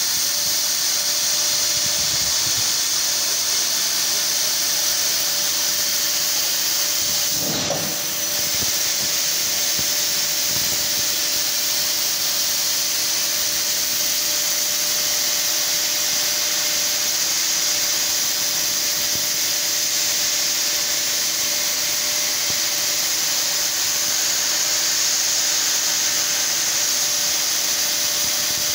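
CNC laser cutting machine cutting 3 mm stainless steel sheet: a steady hiss from the cutting head over a faint, even machine hum. The hiss breaks briefly about eight seconds in, then carries on.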